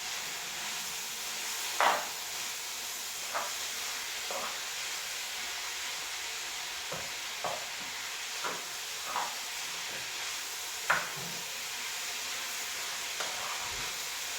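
Beef goulash sizzling in a pot with a steady hiss, while a spoon stirs it and knocks against the pot about ten times at irregular intervals, loudest about two seconds in and again near eleven seconds.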